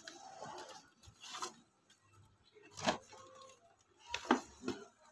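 Quiet handling noises: four separate light clicks and knocks, about one every second and a half, as party popper tubes and a cardboard box are picked up and set down.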